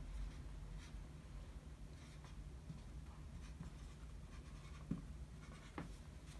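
Dry-erase marker writing on a whiteboard: faint strokes as a word is written out, with a couple of light taps near the end.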